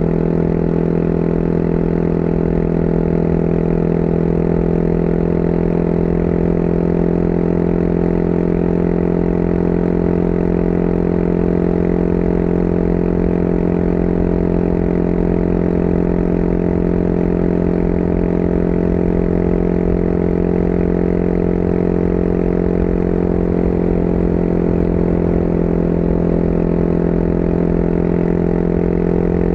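Motorcycle engine running at a steady cruising speed, heard from the rider's seat. Its pitch eases slightly down about two-thirds of the way through and comes back up near the end.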